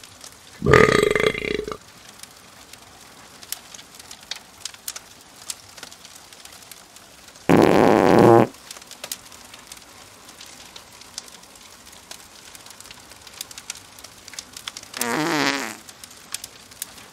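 Three loud comic fart sound effects, about a second long each, near the start, about midway and near the end, the last with a wavering pitch. Faint campfire crackling clicks between them.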